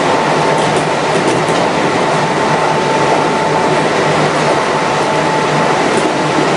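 Kintetsu 1259 series electric train with Hitachi GTO-VVVF control running at steady speed: the rumble of wheels on rail, with a steady thin whine that fades about halfway.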